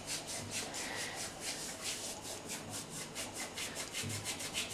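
Palms rubbing together to crumble dried thyme over a bowl of flour: quick, even, dry rustling strokes, several a second.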